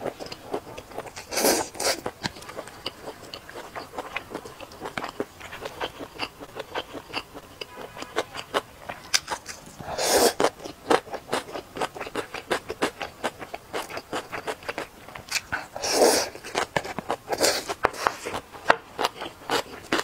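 Close-miked eating sounds: wet chewing with many small mouth clicks, and several long slurps as slippery noodle-like strands of a cold vegetable dish are sucked in, about a second and a half in, about ten seconds in, and twice more near the end.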